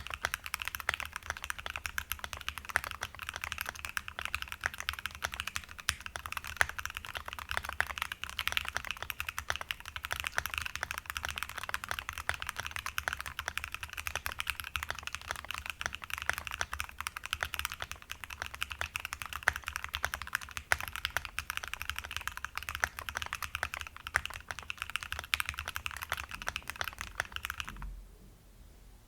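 Fast continuous typing on a Tofu65 aluminium-case mechanical keyboard with a brass plate, lubed and filmed Tealios v2 linear switches and MT3 keycaps: a dense stream of key presses that stops about a second before the end.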